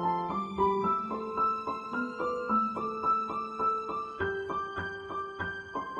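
Background piano music: a gentle melody of evenly paced single notes over held lower tones.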